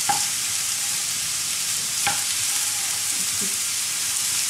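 Diced carrot, leek, onion and garlic sizzling steadily in olive oil in a frying pan as they soften, stirred with a wooden spoon that knocks against the pan twice, just after the start and about two seconds in.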